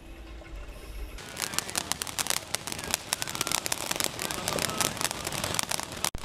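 Ground fountain fireworks spraying sparks with a dense, rapid crackling that starts about a second in, after a moment of low, muffled underwater rumble.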